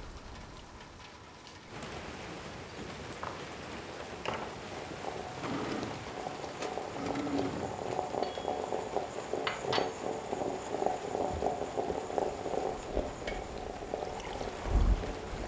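Steady rain hiss, with a few light clicks and knocks. From about five seconds in, a low, steady hum of several tones joins it.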